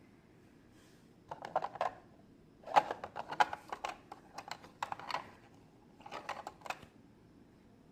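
Small hard plastic toy pieces being handled, clicking and tapping against each other in four short bursts of rapid clicks.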